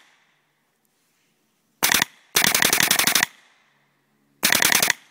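Russian Legion Marq paintball marker fitted with a supercharger kit, fired in three quick strings of rapid shots, the middle one about a second long. Each shot carries a metal-on-metal smack, which the owner takes for the bolt slamming back into firing position and fears is a fault from the kit.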